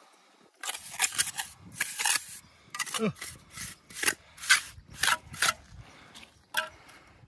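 Mason's hammer striking building stone in a quick, uneven run of about a dozen sharp knocks, then a couple more near the end: chipping small bits off a stone to size it for the wall.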